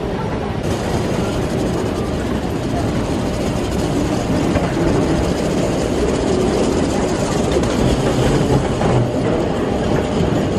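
Steady rumble and running noise of a moving vehicle.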